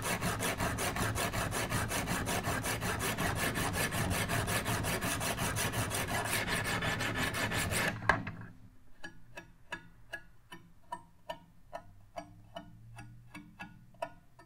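A 100-grit diamond stone on a guided knife sharpener scrubbed rapidly back and forth across a steel blade edge, about four strokes a second, to raise a burr. The scraping stops abruptly about eight seconds in, leaving a run of light ticks, about three a second.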